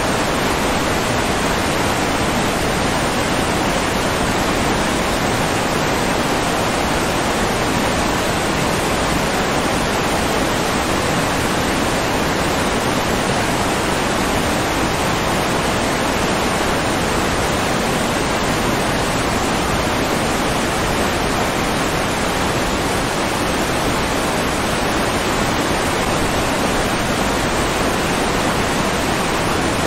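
Steady rushing water, an even hiss and roar that does not change at all.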